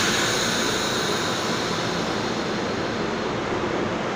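NJ Transit Arrow III electric multiple-unit railcar at the platform: a sharp air hiss that fades over about two seconds, then the steady hum and rumble of the car's equipment.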